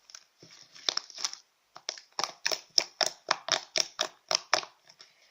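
Homemade glue slime, activated with water and baking soda, being kneaded and squeezed by hand, giving a run of sharp clicks and pops, about four a second. It still holds unmixed activator, so it clicks and tears rather than stretches.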